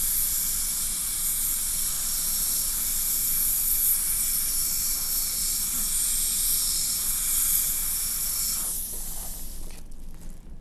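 Slow-speed dental handpiece with a prophy cup running with a steady high hiss, polishing plaque off the lower front teeth with Consepsis Scrub paste. The hiss fades about nine seconds in and stops shortly after.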